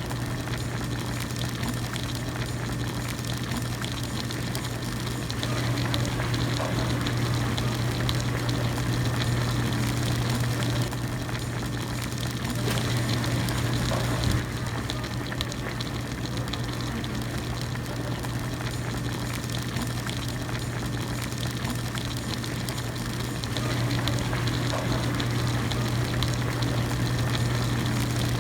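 Hot pot broth at a rolling boil, bubbling and hissing steadily over a constant low hum. The boiling swells louder for several seconds at a time, with one sharp tap about halfway through.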